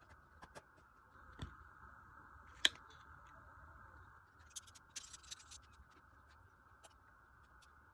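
Handling sounds of unpacking a camera kit: scattered light clicks and taps, one sharp click about two and a half seconds in, and a short burst of rustling and clicking about five seconds in.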